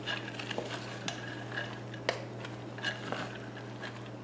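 Wooden spoon stirring a slow cooker full of soaked, drained 16-bean mix: soft scraping with scattered sharp clicks of beans knocking against each other and the pot, over a steady low hum.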